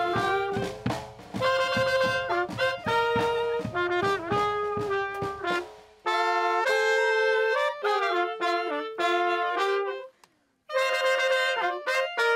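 Brass street band playing a lively tune outdoors, with trumpet, saxophone, clarinet and trombone over steady bass and snare drum beats. About halfway through the drums stop and the horns carry on alone, with a brief break in the music near the end before they come back in.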